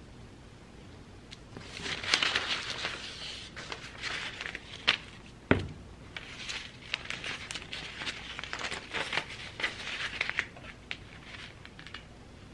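Sheets and strips of printed paper being handled and shuffled, rustling and crinkling in irregular bursts, with a few light taps and one sharper knock about five and a half seconds in.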